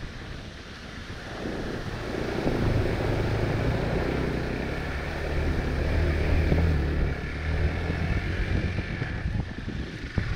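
Hero Xpulse 200's single-cylinder engine running under way, its note building about a second and a half in, holding fairly steady and easing off near the end, with wind buffeting the microphone.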